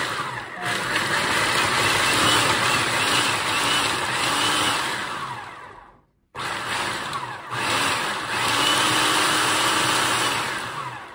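Hamilton Beach food processor motor running with hard acorn pieces rattling in the bowl as the blade chops them into coarse meal. It winds down with a falling whine about six seconds in, starts again, and winds down once more near the end.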